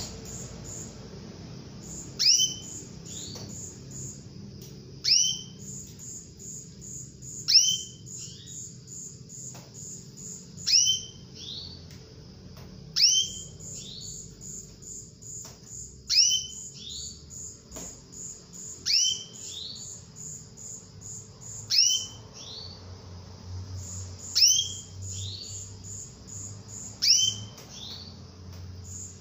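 Female canary calling: a sharp note sweeping down from high pitch, repeated ten times at about one call every three seconds. Between the calls run quick strings of soft, evenly spaced high peeps.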